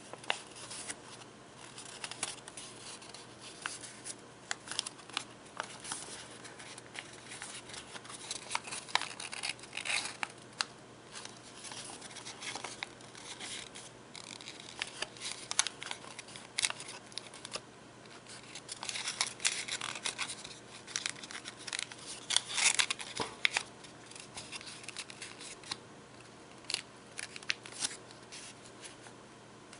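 A sheet of origami paper being folded and creased by hand: crisp crackles and rustles of the paper, coming in clusters, busiest around ten seconds in and again around twenty seconds in.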